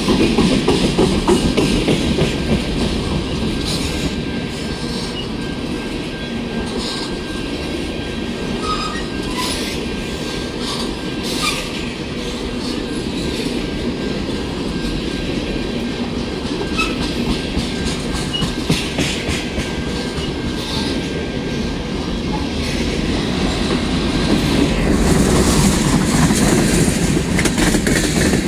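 Freight train of tank cars rolling past at trackside: a steady heavy rumble of steel wheels on rail, with irregular clicks and knocks as the wheels cross rail joints. A thin, steady high wheel squeal runs underneath, and the rumble swells louder near the end.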